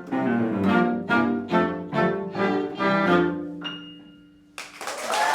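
A classical chamber ensemble plays the closing bars of a piece in steady notes, ending on a held chord that fades away. About four and a half seconds in, the audience breaks into applause.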